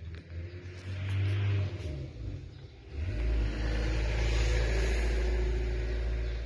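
Loud low rumbling noise from a phone's microphone being handled and moved, patchy at first, then heavy and steady from about halfway through.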